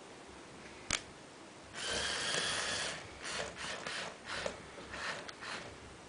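Plastic Lego gear mechanism clicking and ratcheting: one sharp click, then a run of grinding gear noise and a string of short rattling bursts.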